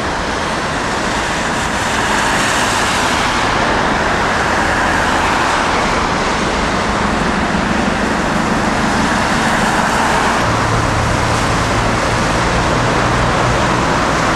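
Road traffic on a wet multi-lane street: a steady hiss of tyres on wet asphalt mixed with car engines passing, with a low engine hum from nearer vehicles in the second half.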